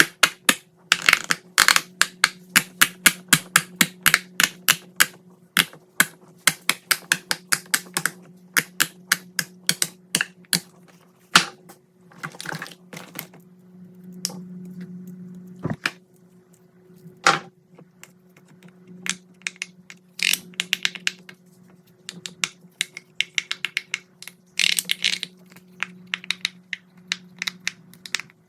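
Pop-it silicone fidget toy bubbles pressed in quick runs of small clicking pops, with a few brief rustling stretches between the runs. A steady low hum runs underneath.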